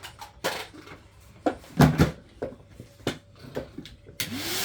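A few light knocks and clatters, then a Numatic Henry vacuum cleaner is switched on about four seconds in, its motor spinning up with a quickly rising whine under a loud rush of air.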